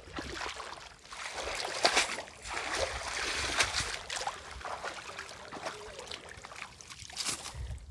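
Shallow muddy water splashing and trickling, with irregular sharp little splashes and sloshes.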